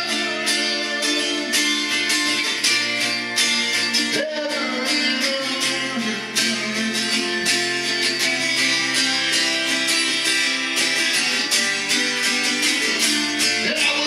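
Acoustic guitar strummed in a steady rhythm, with a man singing along at times.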